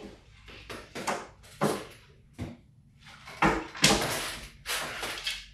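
A run of short knocks and rustles, with a heavier thump about three and a half seconds in and the loudest knock just after it.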